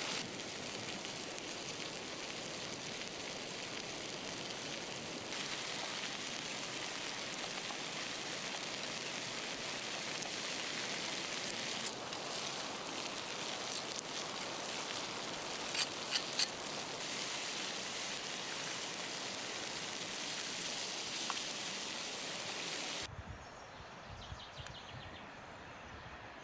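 Beef steaks sizzling on hot stones over a fire, their fat rendering: a steady hiss with a few sharp pops about two-thirds of the way through. Near the end the sizzle cuts off suddenly, leaving a quieter stretch with a few low thumps.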